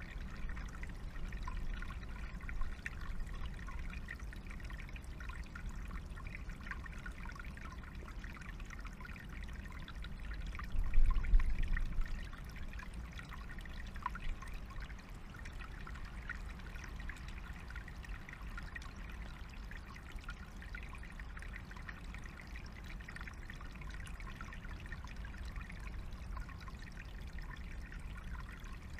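Small forest stream trickling steadily over stones. About eleven seconds in, a brief loud low rumble rises over it.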